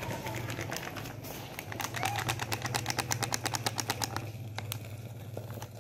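Plastic packet of flour shaken and crinkled as flour is tipped into a bowl: a fast run of rustling ticks lasting a couple of seconds, over a steady low hum.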